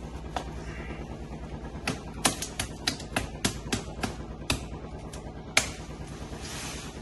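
A large knife blade chopping into the trunk of a thin young tree: about a dozen sharp strikes at roughly three a second, starting about two seconds in and stopping near six seconds with one loud final blow.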